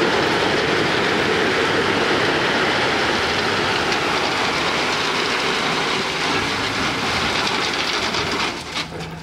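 Crushed stone pouring out of a tipped dump-truck bed onto a pile, a dense, steady rushing rattle of gravel. Near the end it falls off, with a few last stones clattering.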